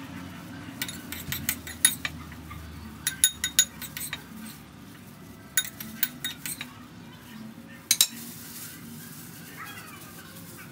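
Metal spoon clinking and scraping against a ceramic bowl while scooping marinade, in four short clusters of sharp taps.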